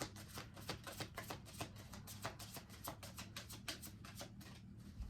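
Oracle cards being shuffled by hand: a quick run of light papery clicks, several a second, that stops near the end. Faint steady background music lies underneath.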